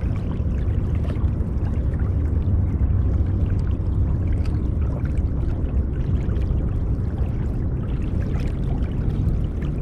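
Water rushing and washing along the hull of a Hobie Pro Angler 14 pedal kayak under way: a steady, even, low noise.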